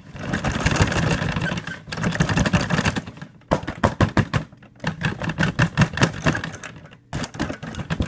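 Handling noise from the vacuum's collected dirt and dust bag: a dry rustle, then from about three seconds in a run of quick, sharp crackles and clicks.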